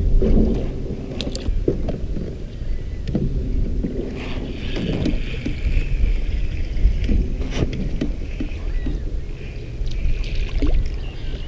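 Steady low rumble of wind buffeting the microphone aboard a small fishing boat, broken by a few sharp knocks against the boat.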